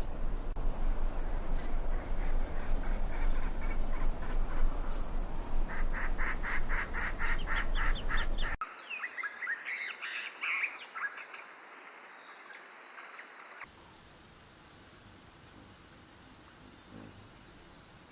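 Wild animal calls over a steady hiss and high ringing tones. A fast run of repeated calls, about four a second, cuts off abruptly a little past halfway. It is followed by a shorter burst of chattering calls and then faint outdoor ambience.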